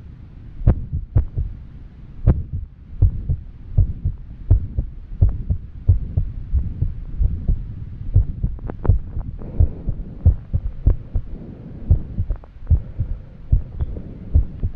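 A woman's heartbeat, fast and irregular after exercise: quick low thumps at uneven intervals, the sign of an arrhythmia. Heavy breathing comes in as a soft rushing in the second half.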